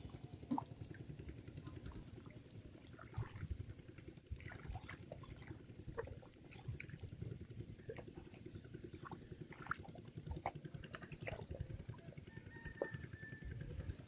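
Faint squelching and splashing of hands digging in wet mud and shallow muddy water, in scattered short irregular sounds over a low steady rumble.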